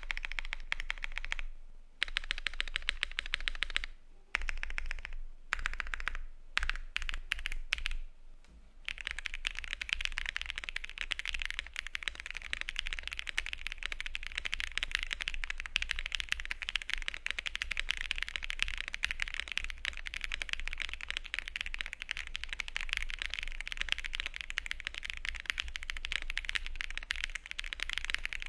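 Typing on a Bubble75 mechanical keyboard fitted with AEBoards Community Switch R1 linear switches: rapid keystroke clacks, first in short bursts with brief pauses, then a steady run of fast typing from about nine seconds in.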